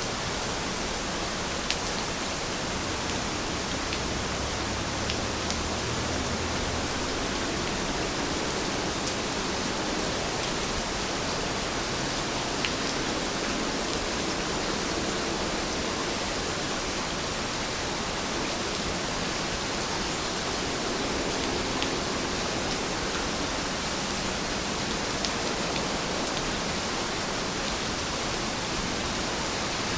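Steady rain falling, an even hiss with single drops ticking here and there.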